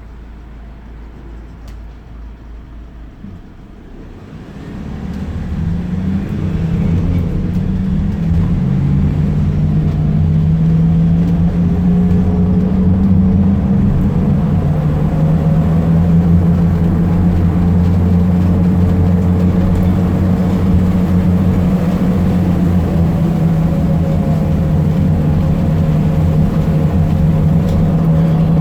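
Fiat Ducato minibus engine, quiet at first, then rising about four seconds in as the bus pulls away and gathers speed. It then runs on as a loud, steady drone.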